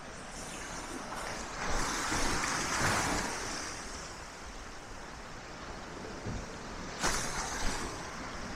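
Black Sea waves breaking on the shore: a wash of surf swells about two seconds in and fades, then another wave crashes suddenly near the end.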